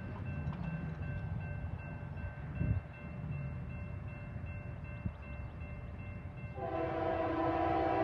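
Railroad crossing warning bell ringing over a low rumble, then near the end the lead diesel locomotive's multi-note air horn starts sounding for the crossing, steady and louder than everything else. The locomotive is Union Pacific 6181, a GE C44ACM.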